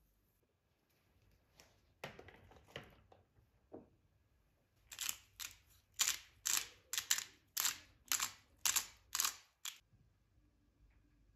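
Salt and then black pepper dispensed over a mixing bowl. A few short strokes come about two seconds in, then about ten sharp, even strokes, roughly two a second, as the pepper goes in.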